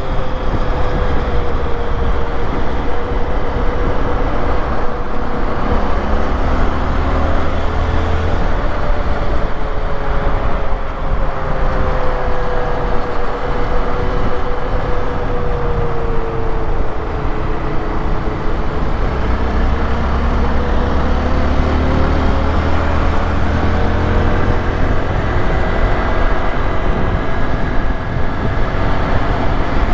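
Honda XRE 190 motorcycle's single-cylinder engine running steadily while riding, its pitch sinking slowly through the middle and climbing again near the end, over steady wind and road noise.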